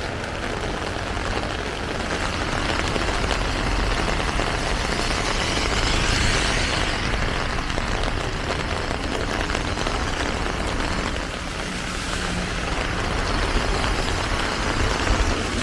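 Steady street ambience in heavy rain: an even hiss of rain with traffic noise underneath, swelling a little a few seconds in.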